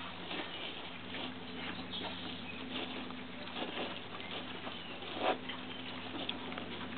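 A litter of piglets shuffling and rooting in straw bedding: scattered light rustles and patters, with one louder bump about five seconds in.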